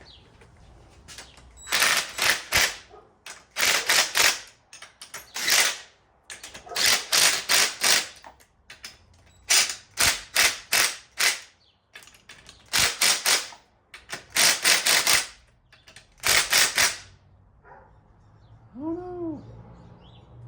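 Hand ratchet wrench clicking in quick bursts of back-and-forth strokes, tightening the handlebar clamp bolts after the bars have been centred. A faint short rising-and-falling squeak comes near the end.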